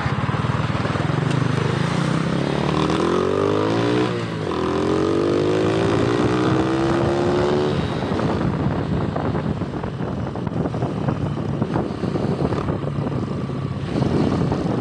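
Motorcycle engine accelerating, its pitch rising twice with a gear change about four seconds in, then settling into steady riding with wind noise on the helmet-mounted microphone.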